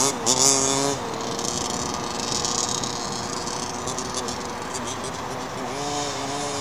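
The 29cc two-stroke engine of a 1:5 scale Baja RC buggy running on the track. It revs up and down in the first second and again near the end, with a steadier buzz between.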